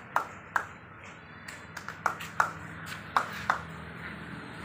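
Footsteps on hard tile paving: about eight sharp, irregularly spaced taps, each with a short ring.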